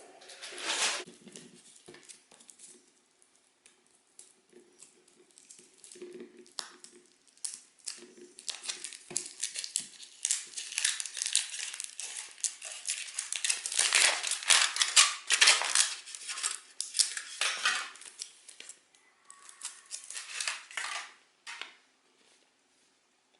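Foil wrapper of a large chocolate egg crinkling and crackling as it is unwrapped by hand. The crackling starts sparse, gets dense and steady in the middle, then tails off near the end.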